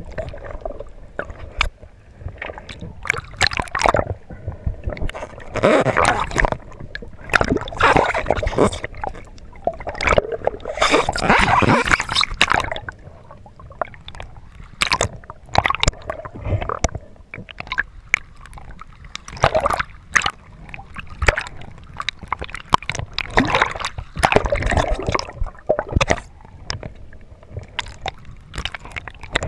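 Water sloshing and gurgling around an underwater camera as a swimmer moves, in irregular surges, with scattered sharp clicks.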